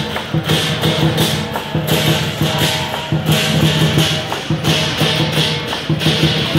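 Chinese lion dance percussion: a large drum beaten rapidly together with clashing cymbals and a gong, in a loud pattern that swells and repeats about every second and a half.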